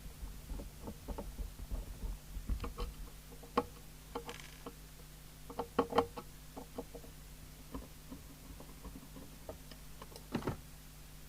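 Irregular clicks and light knocks as screws are undone and the metal bottom cover is taken off a CB radio base station, over a steady low hum.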